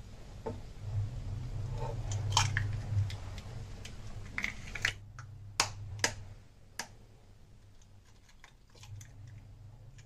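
Raw eggs being cracked open with a kitchen knife: sharp taps of the blade against the eggshells and the crackle of the shells being split and pulled apart, several clicks over the first seven seconds and fainter ones later, over a low steady hum.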